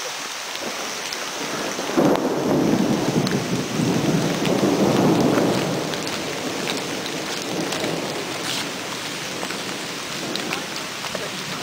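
Steady rain falling on forest foliage, with a roll of thunder that starts suddenly about two seconds in and dies away after a few seconds.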